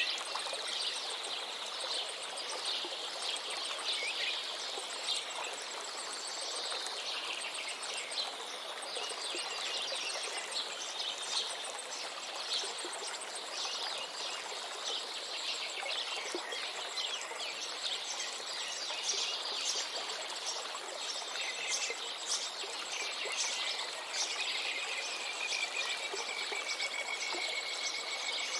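Many small birds chirping and singing over the steady rush of a river. A thin, high, steady trill runs underneath, and near the end one bird holds a long whistled note.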